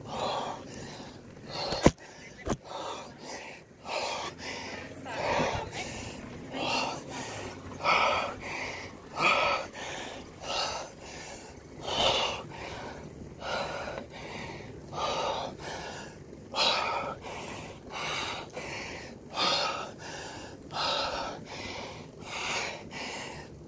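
A cyclist breathing hard while climbing a steep ramp, a forceful puffed breath about every second and a half. Two sharp knocks come about two seconds in.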